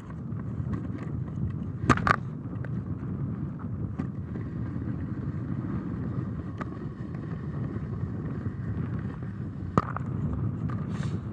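Steady low outdoor rumble, with a couple of sharp clicks about two seconds in and near the end.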